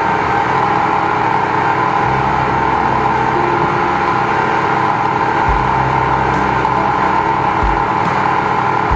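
High-pressure drain jetter's engine and pump running steadily while the jetting hose is fed down a drain line, here one clogged with grease.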